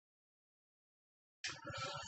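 Dead silence, broken about one and a half seconds in by a short, breathy sound as the speaker draws breath before talking.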